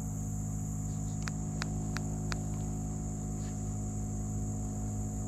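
Steady low hum of a boat motor running as the boat trolls, with a constant high-pitched whine above it. Four short clicks come between about one and two and a half seconds in.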